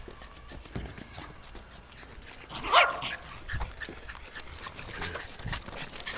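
Jack Russell terrier giving a single bark about three seconds in, the loudest sound here, with scattered light taps and clicks around it.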